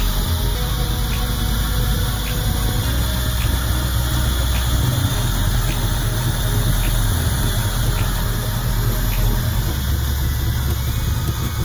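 Volvo Penta 7.4 GSi big-block V8 marine inboard idling steadily with the engine hatch open, an even low rumble. A faint tick repeats about once a second.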